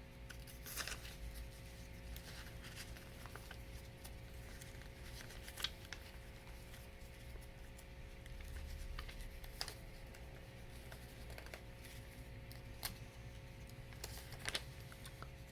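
Plastic parts of a Lego Hero Factory figure being handled and fitted together: scattered faint clicks and rattles, with a few sharper snaps, over a steady low hum.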